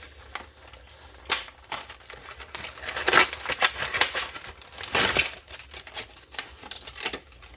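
A candy wrapper being crinkled and torn open by hand: irregular rustling and crackling, loudest about three seconds in and again about five seconds in.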